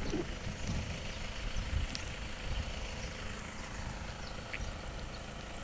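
Outdoor background noise: an uneven low rumble with a steady high hiss and a faint low hum, and a couple of faint clicks.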